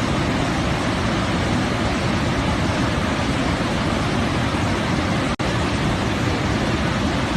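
Steady, even rushing noise with no distinct events, cutting out for an instant about five seconds in.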